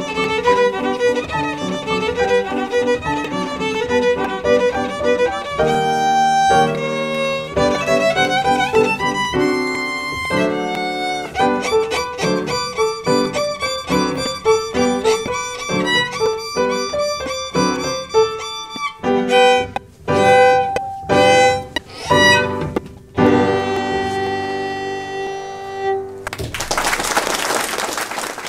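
Solo violin with upright piano accompaniment, playing a lively passage of notes and chords. Near the end the music stops and a short burst of applause follows, cut off abruptly.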